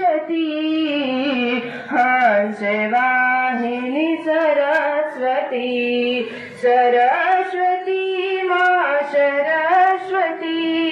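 Young schoolgirls singing a slow song into microphones, unaccompanied, with long held and gliding notes.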